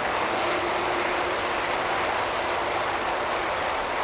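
G-scale model freight cars rolling past on garden railway track: a steady rolling noise from the wheels on the rails, with a few faint ticks.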